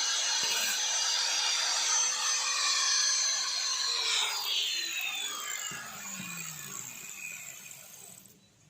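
Small electric power tool running with a steady whine and a gritty cutting noise, then switched off about four seconds in, its pitch falling as it spins down and dies away.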